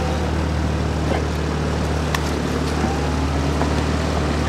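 A motorboat engine, most likely the outboard of a coaching launch, running at a steady speed with water and wind noise over it. A few faint ticks come through it.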